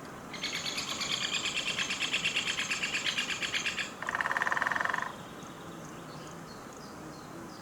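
Woodpecker drumming in a field recording, a rapid even run of knocks lasting about three and a half seconds. Right after it, about four seconds in, another bird gives a short, fast pulsed call lasting about a second.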